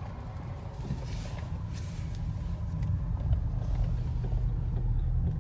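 Low, steady rumble of a 2016 Audi S7's twin-turbo V8 and road noise heard from inside the cabin while driving, growing gradually louder as the car picks up speed.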